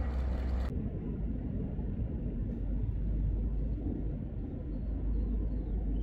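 A steady low outdoor rumble with no distinct events. A higher hiss drops away abruptly about a second in.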